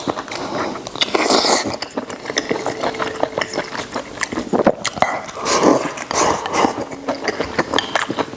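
Close-miked chewing of a mouthful of spicy water-boiled pork intestine: a dense run of wet clicks and smacks, with a few louder squelchy bursts.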